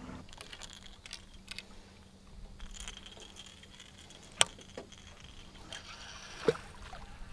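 Faint, scattered clicks and knocks of a baitcasting rod and reel being handled and cast on an aluminium boat, with a sharp click about four seconds in and another about six and a half seconds in.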